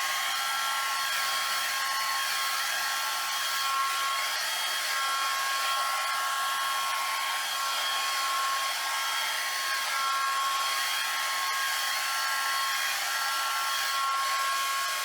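Hair dryer running steadily, blowing wet acrylic paint across a board: a rush of air with a steady high whine. It is switched off at the very end.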